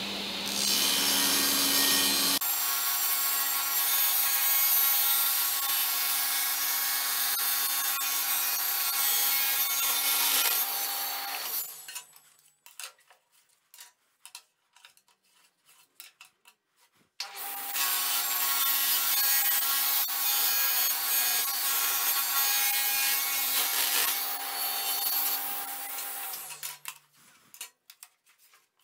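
Kity table saw ripping thin hardwood runners, heard as two cuts of about ten seconds each, each a steady multi-pitched run. Between the two cuts there are a few seconds of light knocks and clicks as the wood is handled.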